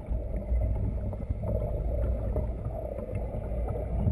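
Wind and water around a small sailboat under way at sea: a steady low rumble of wind with the slosh of water and small knocks and splashes.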